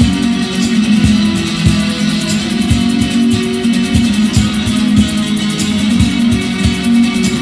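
Instrumental acoustic band playing: strummed, plucked guitars over a fast, steady beat of low drum hits.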